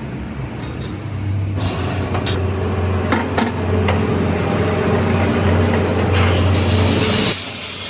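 A heavy vehicle engine running steadily with a low hum, with several sharp metallic knocks over it; the engine sound stops abruptly near the end.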